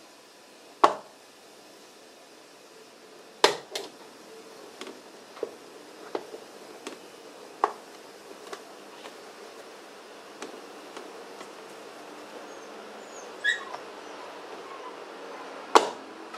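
Scattered sharp clicks and knocks of the plastic intake duct under a Mercedes W210's bonnet being handled and pressed into place. The loudest come about a second in, twice around three and a half seconds, and near the end.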